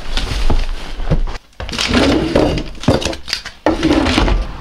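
Handling noises: a run of knocks and thumps, with a kitchen cabinet door under a counter pulled open near the end.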